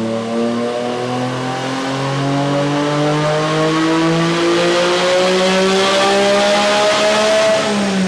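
Car engine pulling steadily under acceleration, its pitch rising slowly, then dropping briefly near the end as it shifts up.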